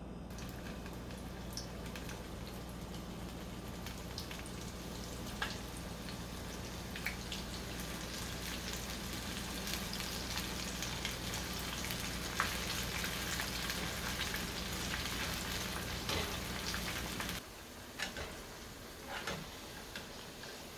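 Onion pakoras deep-frying in hot oil: a steady sizzle full of small crackles and pops that grows louder toward the middle, then drops off sharply about seventeen seconds in, leaving a few separate clicks.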